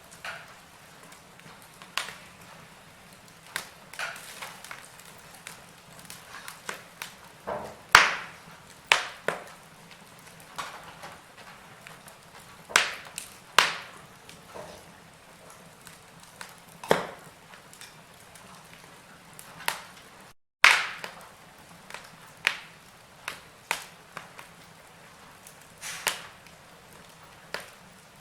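Wood fire in a fireplace crackling, with irregular sharp pops and snaps over a low hiss. The sound cuts out for an instant about twenty seconds in.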